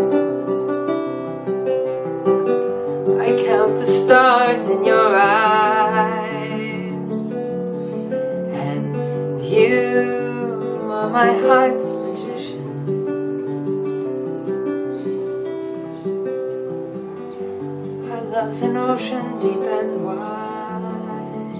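Acoustic guitar playing a steady accompaniment, with a man's voice singing three long wavering phrases over it.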